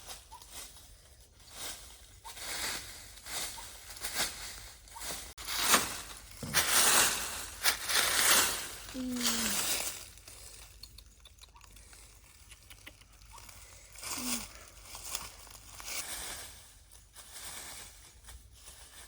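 Irregular rustling and crinkling of leaves and plant stems being handled, loudest in a run of rustles about six to ten seconds in, with a couple of faint short squeaks.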